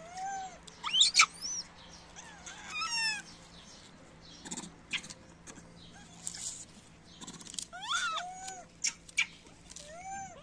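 Baby macaques giving short, high, arching coo calls and squeaks several times, with a cluster of calls about eight seconds in. Short clicks and rustles come between the calls.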